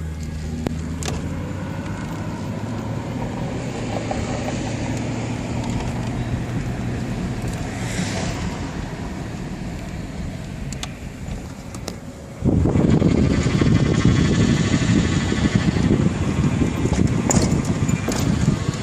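1995 Mercury Grand Marquis's V8 engine running steadily. About twelve seconds in, a much louder rough noise starts suddenly. This is the weird noise that appeared after an idler arm repair, which the owner wonders may come from the power steering.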